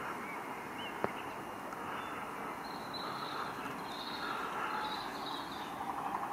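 Steady outdoor background hush with faint bird calls now and then, and one sharp click about a second in.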